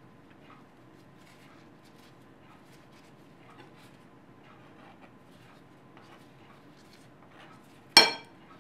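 Faint rustling and scraping of plastic-gloved hands handling cream-filled pastry halves and pressing them together, then a single sharp knock near the end.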